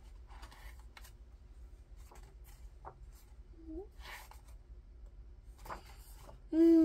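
Faint rustles and soft taps of paper picture-book pages being turned by hand on a tabletop. Near the end a child's voice comes in loudly with one long falling tone.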